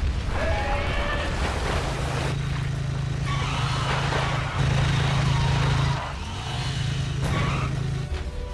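Cartoon off-road buggy engine running at speed, a steady drone with a dip about six seconds in.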